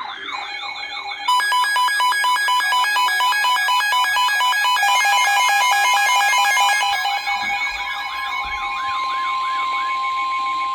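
Emergency Alert System alert tones from several overlapping broadcasts. A warbling, siren-like alarm runs under rapid chirping data bursts and steady attention tones. Near the end a single long steady tone is held, as the next weather warning is introduced.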